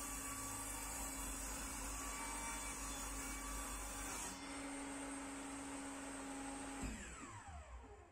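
Table saw running, its blade cutting through a small wooden board with a loud rushing hiss over the motor's steady hum until about four seconds in, then running free. Near seven seconds it is switched off and the blade winds down in a falling whine.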